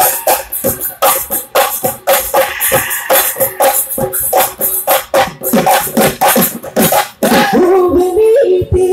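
Bihu music: Assamese dhol drums beaten in a fast, driving rhythm. About seven seconds in, the drumming thins and a wavering melodic line takes over.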